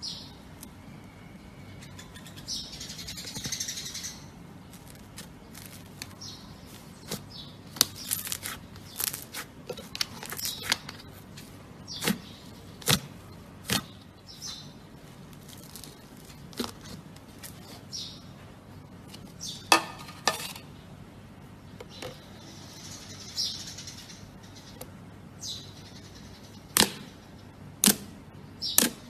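Slime being pressed and poked by hand, making irregular sharp pops and clicks with a few short crackly hisses.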